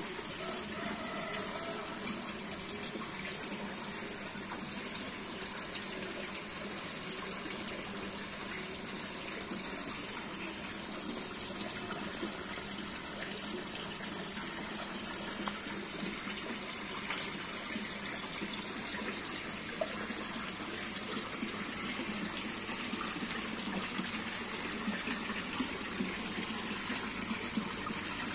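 Water pouring steadily into a large fish tank from an inflow outlet, a continuous gushing splash onto the surface.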